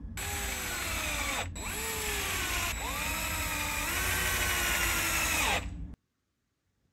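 Electric screwdriver driving the servo mounting screws into a plastic chassis: its motor whines in three runs, each starting high and dropping in pitch, and stops about five and a half seconds in.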